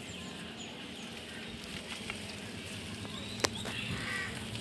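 Outdoor garden ambience: faint bird chirps over steady background noise, with one sharp click about three and a half seconds in.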